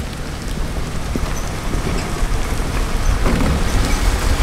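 Rain falling on a moving vehicle on a wet dirt road, over a steady low rumble of engine and tyres. The sound grows slightly louder in the second half.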